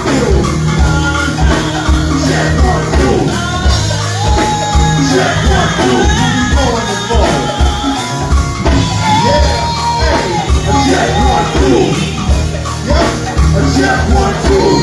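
Live band playing on stage, with a vocalist singing over bass and a steady drum beat.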